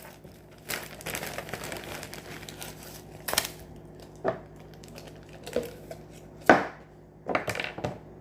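Plastic packaging crinkling and rustling as supplies are handled, with a few sharper crackles and knocks.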